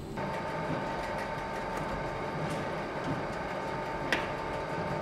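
Bakery dough-moulding machine running: its conveyor belt and rollers make a steady mechanical running sound with a constant tone, and a single sharp click about four seconds in.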